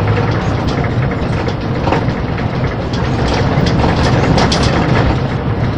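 Scania 440 truck's six-cylinder diesel running under load as the loaded cane truck builds speed. Heard from inside the cab, with a constant clatter of cab and load rattles over a rough dirt road.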